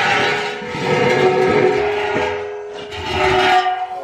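Removed stock steel exhaust pipe and muffler section scraping along the floor, the metal ringing with steady tones under a rasping scrape that swells twice and stops near the end.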